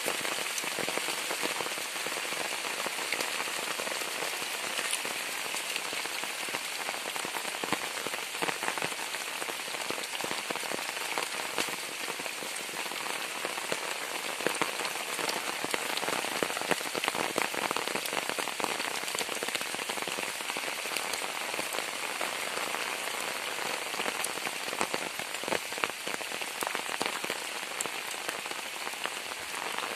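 Heavy rain falling steadily, a dense even hiss made of countless drop hits, with sharper individual drops now and then.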